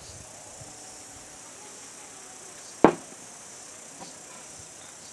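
Steady high-pitched hum of insects, with one sharp knock a little under three seconds in.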